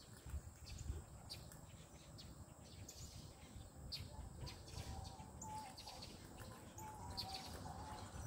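Faint outdoor ambience: scattered short bird chirps over a low, steady rumble.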